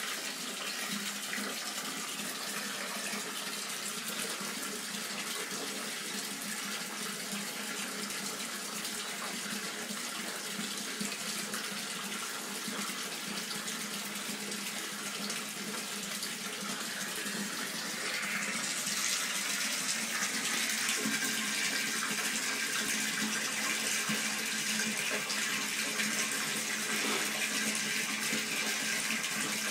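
Water running from a bath tap into a bathtub, a steady rushing that gets louder and brighter about eighteen seconds in, as the flow is turned up.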